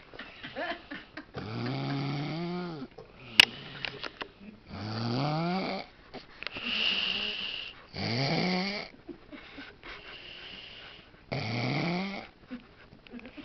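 A man snoring in long, regular snores a couple of seconds apart, each rising in pitch. A single sharp click sounds about a quarter of the way through.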